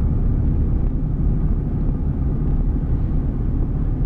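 Lifted Jeep driving through snow, a steady low rumble of engine and road noise heard from inside the cab.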